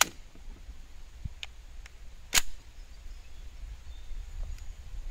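A PSA Rock 5.7x28mm pistol being made ready to fire: a sharp click at the start, a few faint ticks, then a loud metallic clack about two and a half seconds in as the slide is racked to chamber a round.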